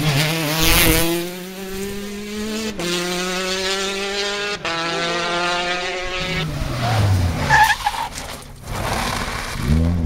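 Rally cars at racing speed: a Citroën DS3 rally car's engine passing close in the first second, then an engine held at a steady high rev for several seconds. Near seven seconds an engine note drops sharply in pitch as a car comes off the throttle, and near the end another engine climbs in revs under hard acceleration.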